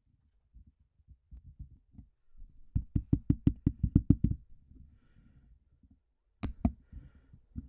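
Fingers tapping directly on an Apogee HypeMiC USB microphone, heard through the mic itself as dull knocks: a few light taps, then a quick run of about ten louder taps around three seconds in, and two more near the end. The tapping is a check of whether the mic is recording.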